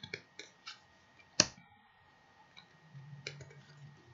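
Tarot cards being handled and flipped by hand: a few light, irregular clicks and one sharper card snap about a second and a half in. A faint low hum sets in near the end.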